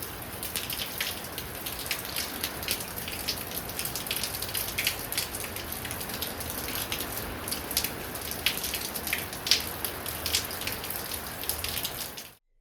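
Steady patter of falling water, many sharp drops striking a surface over a continuous hiss. It cuts off suddenly just before the end.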